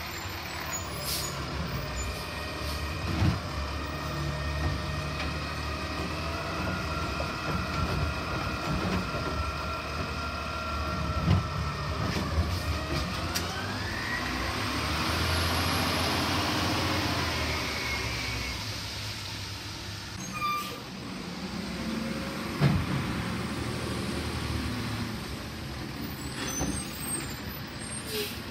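Automated side-loading garbage truck working carts at the curb: the diesel engine runs steadily under a hydraulic whine that rises in pitch about halfway through, followed by a louder swell as the engine revs. Several sharp knocks come as carts are gripped, tipped and set down.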